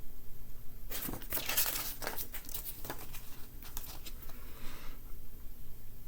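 Paper pages of a CD booklet rustling as they are handled and turned, with a few sharper crackles. It starts about a second in and dies away near the end.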